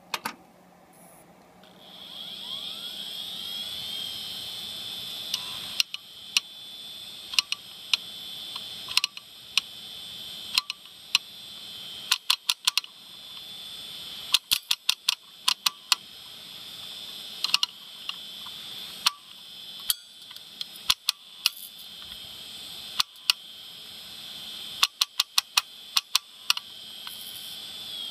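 Open hard drive spinning up with a rising whine, then running with a steady high whine. Over it come many sharp metallic clicks, singly and in quick runs, as a screwdriver pokes and pushes the read/write head arm.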